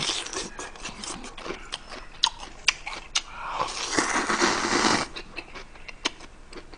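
Ramen noodles slurped from a bowl held to the mouth: a loud hissing slurp lasting about a second and a half, about a third of the way in. Before and after it come chewing and sharp little clicks.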